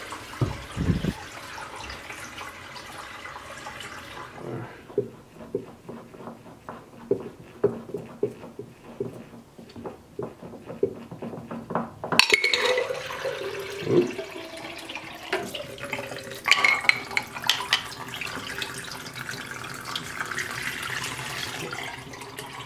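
Water running and splashing, with scattered taps and clinks of glass. About halfway through it gets louder as the stream of clear filtered water runs into a glass beaker held over a sink.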